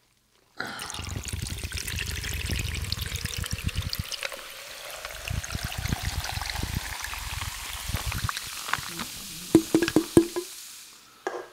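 Fresca soda poured over ice in a tall glass, then fizzing and crackling over the ice. Knocks and rubs from the glass being handled close to the microphone run through it, with a few sharper clicks near the end.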